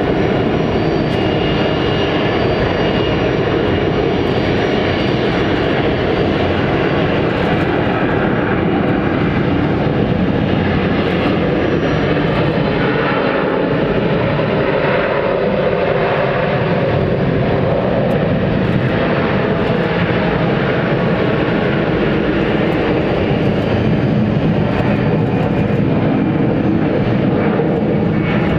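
Jet engines of a Boeing 767-300 freighter during touchdown and landing rollout on the runway, a loud, steady rumble that holds its level throughout.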